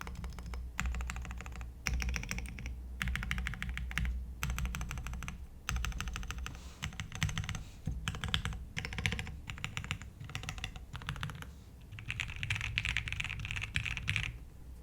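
Typing on a QK60 custom mechanical keyboard with linear Cherry MX Black switches: bursts of rapid keystrokes broken by short pauses, with one longer, denser run near the end.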